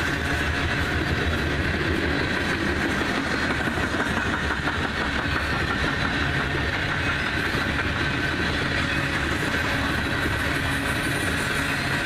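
Freight train of coal hopper cars rolling past: steel wheels running on the rails in a steady, unbroken rolling noise.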